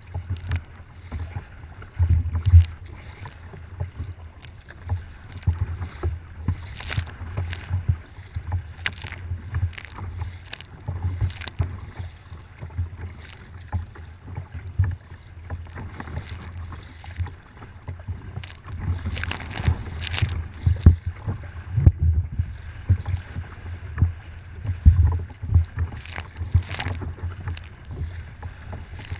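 Choppy waves slapping against a kayak's hull and spraying over its bow, irregular splashes every second or so over a steady low rumble.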